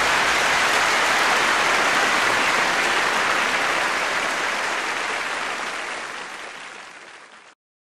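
Audience applause, holding steady, then fading away over the last few seconds and cutting off suddenly.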